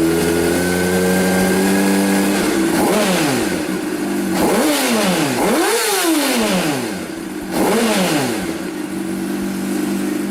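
Sport motorcycle's inline-four engine with an Akrapovic slip-on exhaust, idling steadily, then blipped with several quick throttle revs that rise and fall in pitch, settling back to idle near the end.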